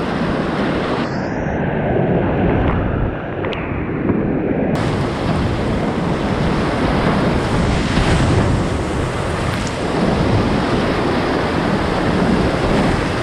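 Whitewater rapids rushing steadily around a kayak running down a steep creek. The rush sounds muffled for a few seconds from about a second in, then opens up bright again.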